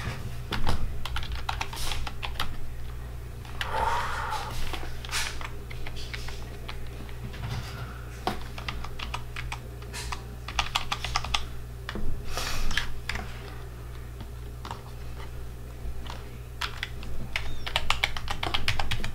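Keys of a BlackWeb gaming keyboard being typed on in irregular runs of quick clicks, over a steady low hum.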